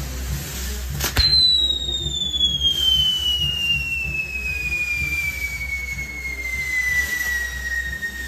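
Fireworks castle's spinning wheel burning with a steady hiss of sparks. A sharp bang comes about a second in, then a long whistle that slides slowly and steadily downward in pitch.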